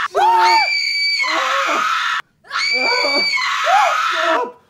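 Shrill screaming held long, breaking off about two seconds in and starting again, with a lower voice crying out beneath it.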